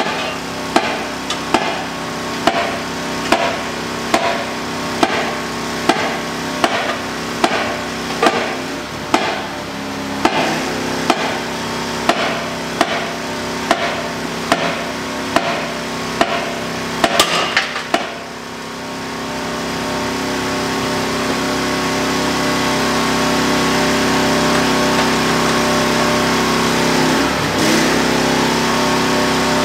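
Steel bar clanking against the clamp hooks of a snap-on dual tractor wheel in a regular rhythm, a little over one knock a second, as the clamps are forced tight, with a quick flurry of knocks about halfway through. Then the knocking stops and a steady engine-like running noise swells up and holds, over a hum that runs underneath throughout.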